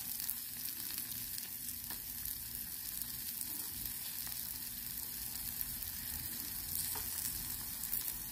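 Food sizzling steadily on a Blackstone flat-top griddle as bacon, halloumi, zucchini and tortellini fry, with a few faint clicks of metal tongs against the griddle.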